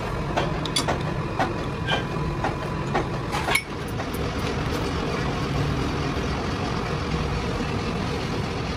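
Metal lathe running steadily with a motor and gear hum. For the first three and a half seconds a regular tick comes about every half second, then the sound changes suddenly to smooth, even running.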